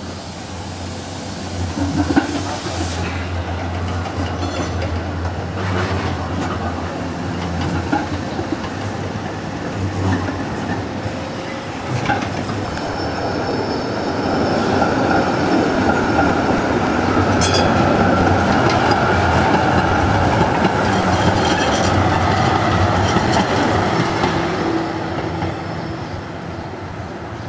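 Articulated city trams running on street track: wheels rumbling over the rails with several sharp clacks at joints and points, and a thin steady wheel squeal from about halfway through as a tram takes a curve.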